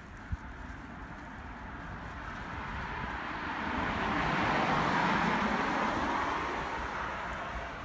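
A motor vehicle driving past on the road: its engine and tyre noise swells to a peak about halfway through and then fades away.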